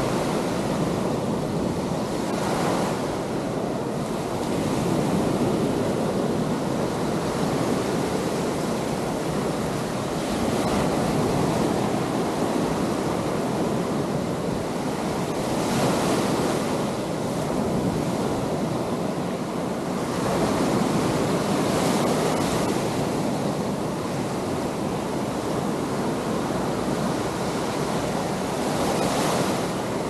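Small surf breaking and washing up a sandy beach in a steady rush, swelling with each wave every five or six seconds.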